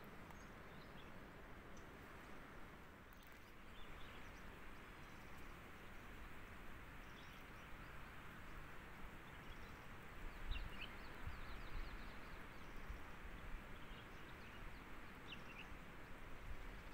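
Quiet outdoor ambience: a steady hiss of background noise with a few short bird chirps scattered through it.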